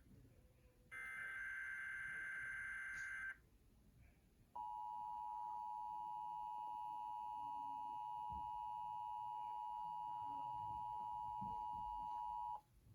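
Emergency Alert System monthly test: a short burst of the SAME data header, a harsh two-pitch electronic warble lasting about two and a half seconds, then after a brief gap the steady EAS two-tone attention signal, held for about eight seconds before it cuts off sharply.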